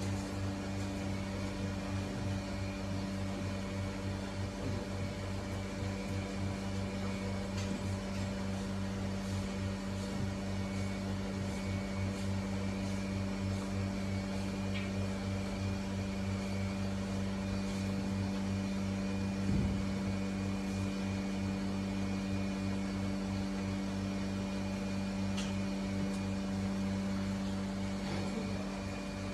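Steady hum of barn machinery: a low, even drone with a few faint knocks, one a little louder about two-thirds of the way through.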